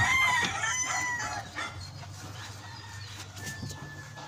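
A rooster crowing, one long call in the first second and a half and a fainter held note near the end, over a low steady hum.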